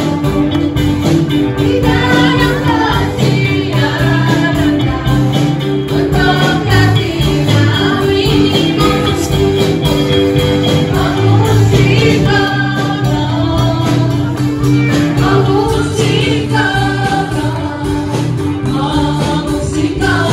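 A lively gospel song performed live: a group of women singing together into microphones, backed by a church worship band with electric guitar and a steady beat.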